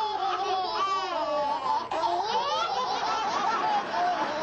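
Baby quadruplets laughing together, several high-pitched infant laughs overlapping without a break.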